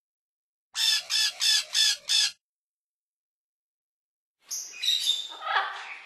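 Parrots squawking: a quick run of five harsh squawks, a pause of about two seconds, then a busier stretch of mixed calls and chatter near the end.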